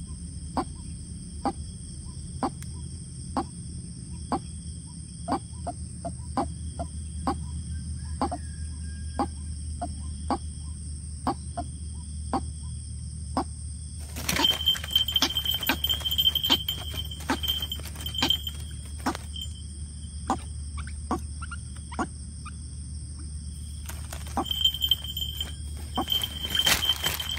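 A long series of short, evenly spaced calls, about two a second, typical of a white-breasted waterhen's monotonous call. About halfway through, and again near the end, louder rustling and clatter joins in.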